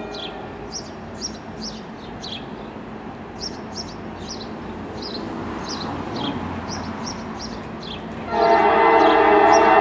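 Norfolk Southern GP38-2 diesel freight locomotive approaching with a low rumble, its multi-tone air horn sounding a long blast that starts about eight seconds in; an earlier blast fades out at the very start. Birds chirp throughout.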